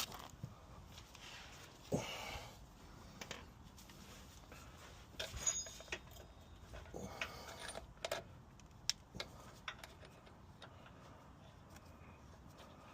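Scattered metallic clinks and clanks of hand tools and bolts against steering parts, with a brief scraping rustle about two seconds in.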